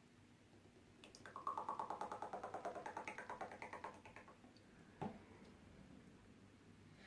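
Fast, even stirring or clattering in a bowl as the slime ingredients are mixed, about eight strokes a second for some three seconds, followed by a single knock about five seconds in.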